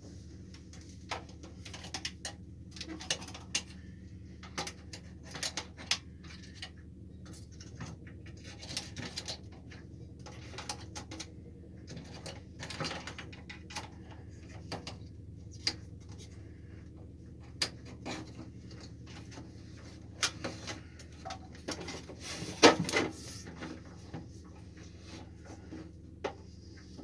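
Scattered clicks, taps and light knocks of hands handling a welding gun's hose in a welder's wire-feed compartment as it is fed through, with a louder clatter about 23 seconds in, over a steady low hum.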